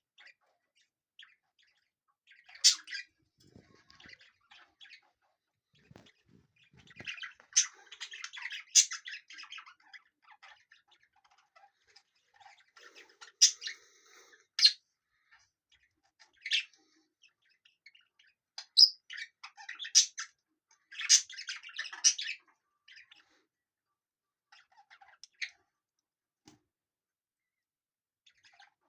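Budgerigar chirping: sharp single chirps every few seconds, with two longer bursts of rapid chattering warble, one about a quarter of the way in and one about two-thirds of the way in.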